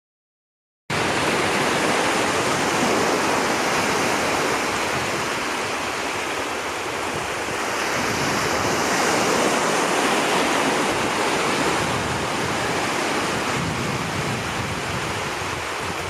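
Small waves breaking and washing over shallow sea water: a steady rushing hiss that starts abruptly about a second in after complete silence.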